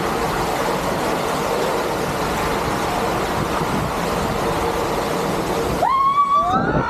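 Rider sliding down an enclosed water-slide tube on a film of rushing water: a steady, dense rushing noise. Near the end, as the tube opens out, the noise drops away and a voice rises into a long shout.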